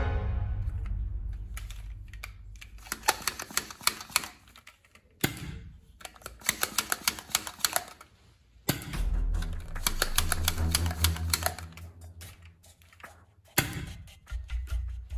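Several bursts of rapid, sharp mechanical clicks, some of them with music underneath.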